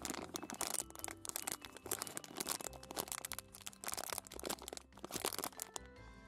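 Polypropylene snack bag crinkling and crackling in the hands as its sealed top is pulled open, a dense run of crackles that stops near the end. Faint background music underneath.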